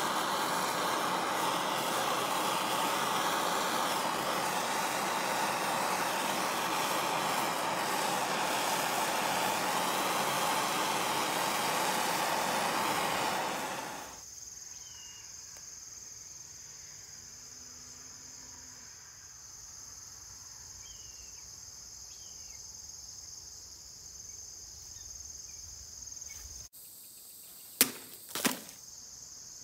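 Gas torch flame hissing steadily as it scorches a knife's handle scales, stopping about halfway through. After that a steady high chirring of crickets, then two sharp hits about half a second apart near the end as a heavy bolo knife chops through a water-filled plastic bottle.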